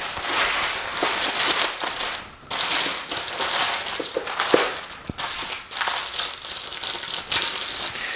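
Plastic poly mailer bag and padded shipping envelope crinkling and rustling in bursts as they are opened and handled, with a few light knocks.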